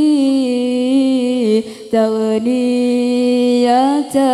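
A single voice singing an Arabic devotional song (nasheed) through a microphone, drawing out long held notes between the sung words, with a short pause for breath about two seconds in.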